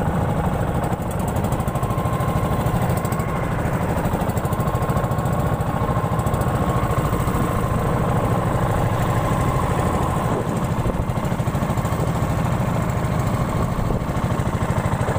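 Motorized bangka's engine running steadily at cruising speed, with a fast, even chugging.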